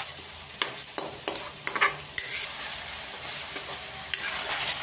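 Onion-and-spice masala paste sizzling as it fries in a metal kadhai, stirred and scraped with a steel spoon: several sharp scrapes and knocks of the spoon on the pan in the first two seconds and one more near the end, over a steady sizzle. The paste is being fried down with a little added water.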